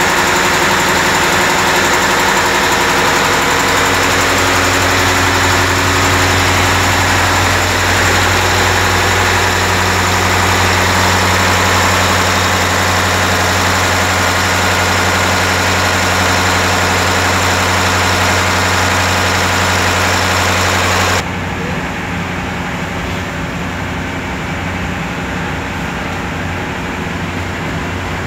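Boat's marine diesel engine running steadily, heard close up and loud in the engine room, its note shifting slightly about seven seconds in. About 21 seconds in, the sound cuts abruptly to the same engine as a quieter, duller hum heard from the wheelhouse while under way.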